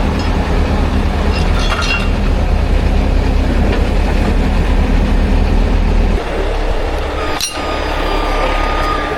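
Heavy diesel engine of the recovery equipment running steadily, with metallic clinks of rigging. The engine note drops about six seconds in, and a single sharp knock sounds a little later.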